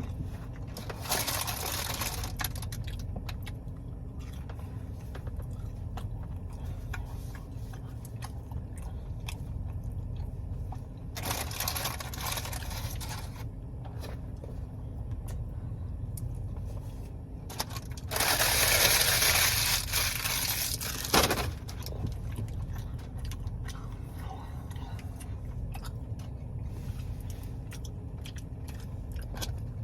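Close-up chewing and crunching of fried garlic cheddar bites. Three louder noisy stretches of two to three seconds each sit over a steady low hum, with a short sharp sound near the end of the third.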